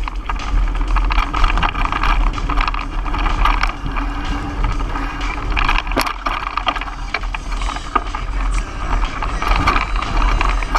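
Trek EX7 29er mountain bike riding fast on a dirt singletrack, heard through a camera mounted on the bike: a steady wind rumble on the microphone, tyres rolling over dirt, and the bike and mount rattling and clicking over bumps, with one sharp knock about six seconds in.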